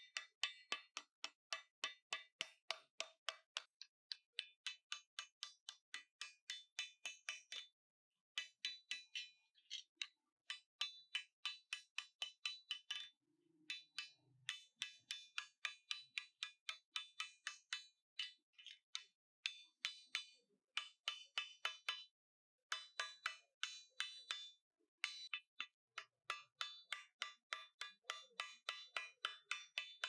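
Repeated hammer blows on metal, about three a second, each with a short metallic ring. They come in runs broken by brief pauses.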